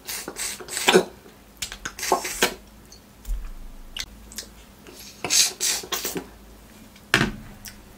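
Close-miked eating sounds of sucking, slurping and chewing on a piece of mutton bone meat, in irregular short bursts. The loudest come about a second in and again around five to six seconds.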